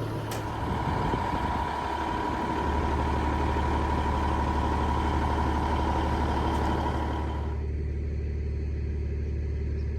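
Heavy diesel machinery running steadily: a deep, even engine hum with a thin steady whine above it. About seven and a half seconds in, the higher sounds cut away and only the low hum is left.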